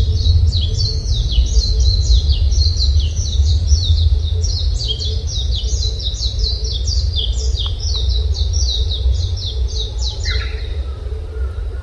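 A songbird singing a fast, continuous run of short, high, falling chirps, about four to five a second, which stops about ten and a half seconds in, when a lower call starts. A steady low rumble runs underneath.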